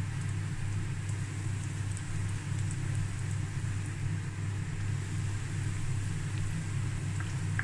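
Breaded potato-cheese croquettes sizzling in hot oil in a frying pan, with faint crackles, over a steady low hum.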